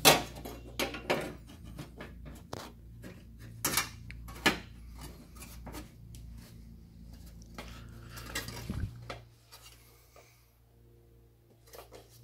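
Irregular sharp clicks and taps of hard plastic being handled as a rubber door-seal strip is pressed onto a plastic bumper retainer lip, dying away about nine seconds in. A steady low hum sits underneath.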